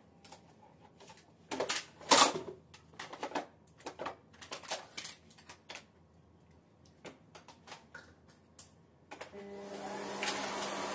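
Plastic knocks and clatter as a canister vacuum cleaner's hose and wand are handled. About nine seconds in, the vacuum's motor switches on and runs steadily with a hum and a rush of air.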